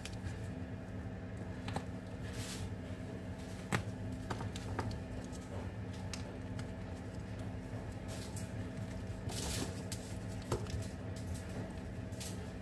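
Foil-wrapped chocolates crinkling and ticking lightly now and then as they are handled and set down on a tray, over a steady low machine hum.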